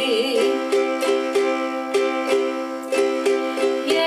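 Ukulele strummed in a calypso strum pattern, even strokes about three a second on held chords, between sung lines. A held sung note with vibrato fades out about half a second in.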